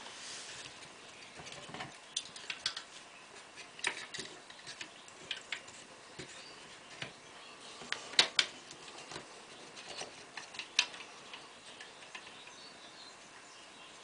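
Small wooden bird traps with wire bars being handled on a table: irregular wooden clicks and taps as the frames and perch sticks are moved and knocked together, the loudest a quick pair about eight seconds in.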